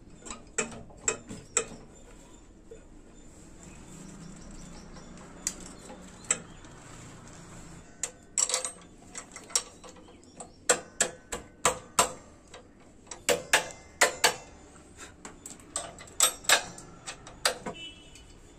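Sharp metallic clicks and clinks of spanners on the nuts and bolts of a TVS 50 moped's engine mount as the engine is bolted to the frame. They come singly and in quick clusters of several clicks, most of them in the second half.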